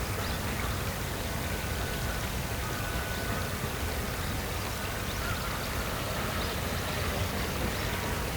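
Outdoor waterside ambience: a steady hiss of flowing water with a low rumble beneath, and a few faint short bird calls.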